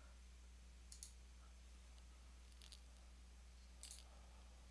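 Three faint computer mouse clicks over a low steady hum, near silence otherwise.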